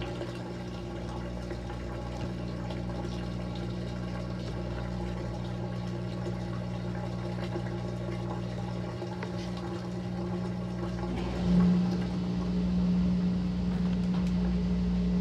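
Maytag top-load washing machine filling its tub: water running in steadily, over a constant hum from the machine. About 11 seconds in, a louder steady hum joins and holds.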